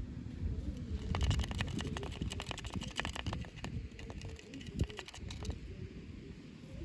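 Toy packaging being handled and opened: plastic and cardboard crinkling, with a dense run of small clicks and crackles from about a second in until about five and a half seconds, over low handling rumble.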